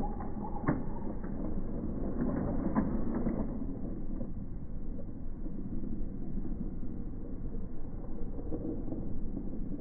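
Battery-powered Thomas the Tank Engine toy train running along plastic track, its small motor and gears whirring, with a few clicks and rattles in the first few seconds.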